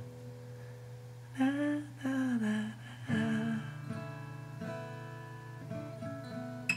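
Acoustic guitar playing slow held chords, with three short wordless hummed phrases in the first half and a sharp click at the very end.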